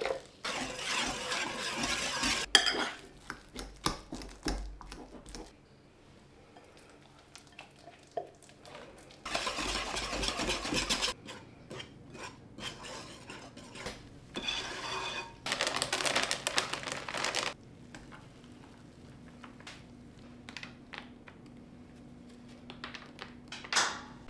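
A kitchen utensil stirring and clinking against a mixing bowl as banana bread batter is mixed. It comes in three bouts of two to three seconds each, at the start, about ten seconds in and about fifteen seconds in, with scattered clinks between.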